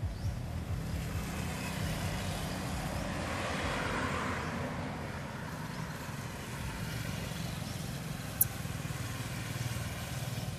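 A motor vehicle's engine running steadily, swelling louder for a moment about four seconds in, with one short sharp click near the end.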